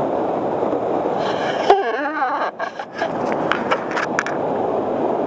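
Whitewater rushing loudly past a kayak-mounted camera. A sharp knock comes a little under two seconds in, then a brief muffled stretch, then a quick run of knocks and clicks about three to four seconds in.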